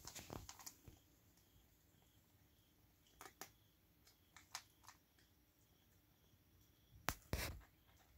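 A cat eating dry kibble: a few faint, scattered crunches and clicks, the loudest pair a little after seven seconds in.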